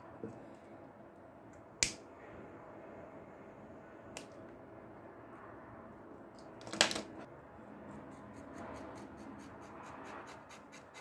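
Hands handling a thick leather wallet on a cutting mat: soft rubbing of the leather with two sharp clicks, about two seconds in and about seven seconds in, and a quick run of small ticks near the end as a utility knife is brought to the wallet's edge.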